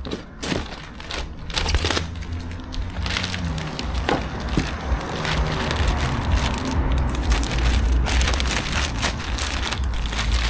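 Strong wind buffeting the microphone with a steady low rumble, over crinkling, crackling and clicking of packaging being handled.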